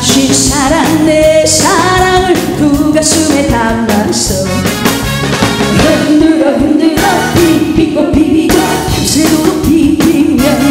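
A woman singing a Korean trot song live into a microphone, backed by a band with drum kit and keyboards.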